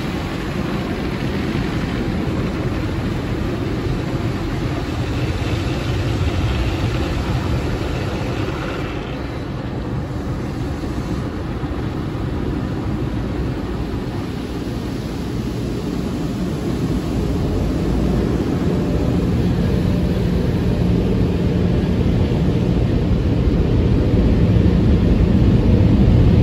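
Automatic tunnel car wash heard from inside the car: water spraying and running over the body and windshield, the hissing spray thinning out about nine seconds in. A steady low drone from the wash machinery builds and grows louder toward the end as the car nears the exit dryer blowers.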